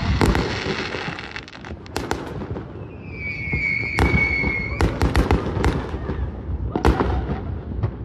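Consumer aerial fireworks going off in quick succession: repeated bangs and pops of bursting shells, with crackling in the first second. A high whistle sounds about three seconds in and holds for nearly two seconds.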